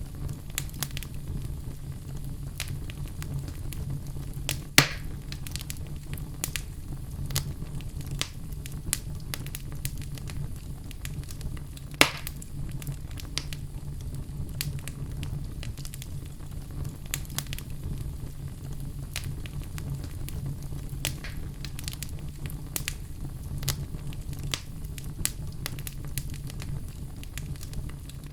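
Logs burning in a fireplace, crackling with frequent small snaps over a steady low rumble. Two louder pops stand out, about five seconds in and again about twelve seconds in.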